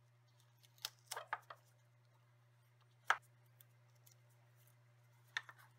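Faint clicks and taps of a clear plastic gel casting tray being handled and taped, in a cluster about a second in, a sharp single click about three seconds in and another near the end.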